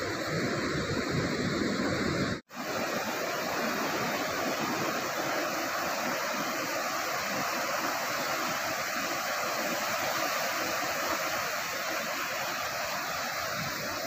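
Surf breaking and washing up a shallow sandy beach, a steady rush of waves. The sound cuts out for an instant about two and a half seconds in.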